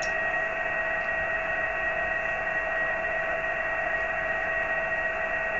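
Amateur radio receiver audio from a satellite downlink: a steady band of static hiss with a steady whistle tone through it, and no voice coming back. The operator's own signal has faded out of the satellite pass.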